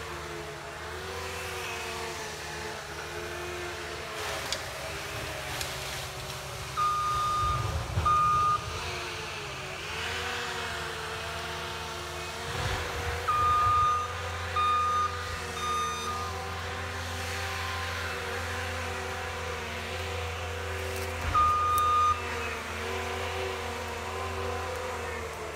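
An ASV RT120F forestry track loader carrying a Diamond Mowers disc mulcher runs steadily. Its reversing alarm beeps in short spells, twice about a quarter of the way in, three times around the middle, and once more near the end, as the machine backs up.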